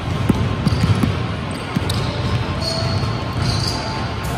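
A basketball bouncing on a gym floor during play: a handful of dribble thuds in the first two seconds, then a couple of short high squeaks.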